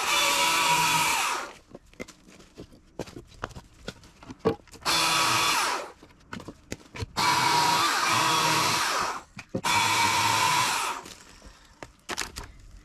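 EGO CS2005 20-inch battery-powered chainsaw cutting firewood, run in four short bursts of one to two seconds each with its electric motor and chain running at speed. In the pauses between runs there are small clicks and knocks.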